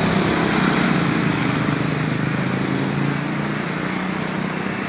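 Truck engine running steadily, slowly getting quieter.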